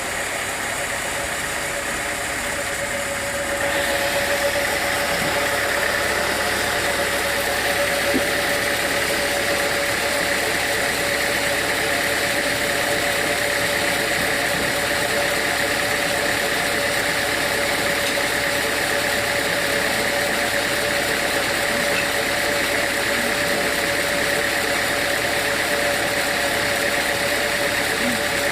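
Sawmill machinery running steadily with a constant hum. About three and a half seconds in it gets louder and a higher whine joins, then holds steady to the end.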